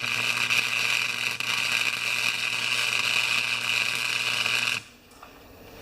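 Electric arc welder laying a bead on a small steel bolt: one continuous weld, a steady hiss with a low hum, starting abruptly and cutting off about five seconds in. The weld burnt through the steel because the bead was run too slowly.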